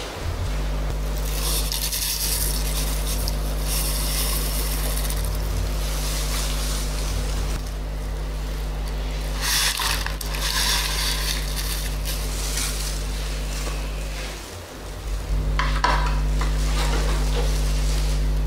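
Thin sago-flour and coconut-milk batter being stirred in an aluminium wok, with scraping and sloshing in three stretches over a steady low hum.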